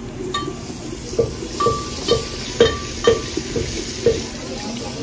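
Spice masala frying in ghee in a clay handi, stirred with a wooden ladle that knocks against the pot about twice a second under a steady sizzle.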